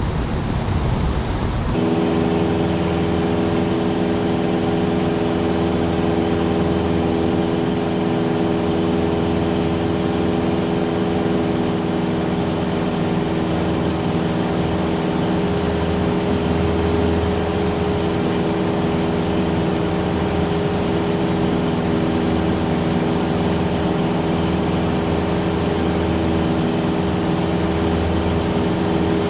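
Cessna 177's piston engine and propeller droning steadily in flight, a constant stack of tones over a low throb. About two seconds in, a rough wind-buffeted rush cuts off abruptly and gives way to the drone.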